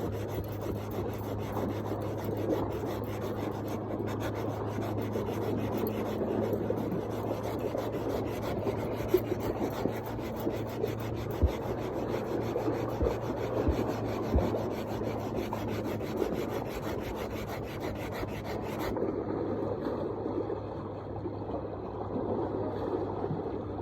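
Coarse 80-grit sandpaper rubbed by hand over the painted shell of a drum, a continuous rasping scrub that strips the old paint. A steady low hum sits underneath until about two-thirds of the way through.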